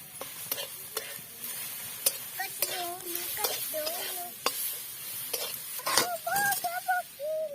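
Leafy saag sizzling as it is stir-fried in a pan, with a utensil clicking and scraping against the pan. In the second half there are several short, wavering, high-pitched calls.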